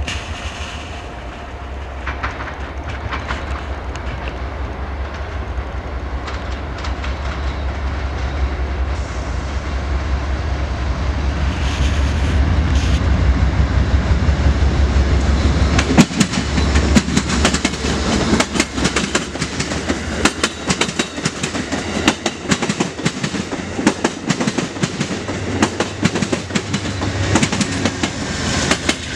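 Amtrak P42 diesel locomotive approaching with a low engine rumble that grows steadily louder, cutting off sharply about halfway through as it passes. Then comes a rapid clickety-clack of Amfleet passenger-car wheels over the rail joints, with the rumble of the trailing P42 rising again near the end.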